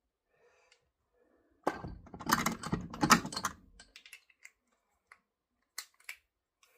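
Metal hand tools being handled: a burst of clattering and rattling clicks lasting about two seconds, then a few single clicks.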